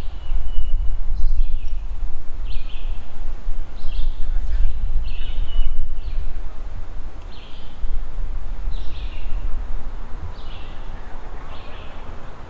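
Wind rumbling on the microphone, with a bird calling over it in short high notes repeated about once a second.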